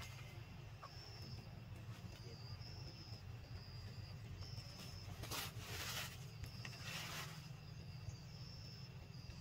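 Faint insect chirping: a short high note repeated about once a second, with a few brief hissing bursts around the middle, over a low steady hum.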